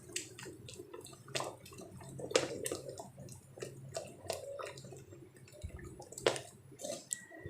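A ladle stirring thick coconut milk and urad dal batter in a kadai, with wet squelching and irregular small clicks and a few sharper knocks of the ladle against the pan.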